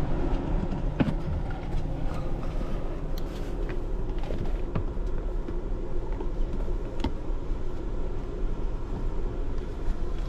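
A steady low rumble, with a few sharp clicks and knocks as the lid of a wooden storage box between a vehicle's front seats is lifted and things inside are rummaged through.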